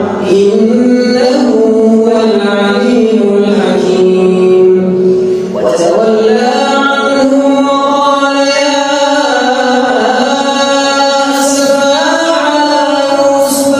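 A man's solo Quran recitation in a melodic, drawn-out tajweed style: long held notes with ornamented turns, a short breath pause about five and a half seconds in, then a rise to a higher note, with another step up near the end.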